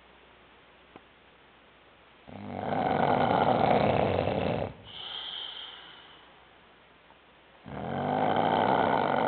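Snoring in deep sleep: two long, loud rasping snores about five seconds apart, with a softer, higher, whistling breath between them.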